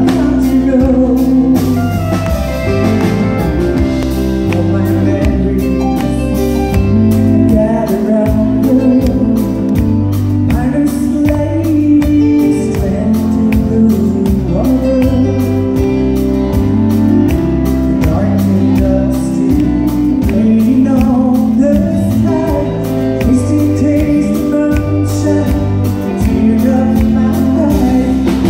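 A woman singing live into a handheld microphone over amplified backing music with a steady bass line and beat.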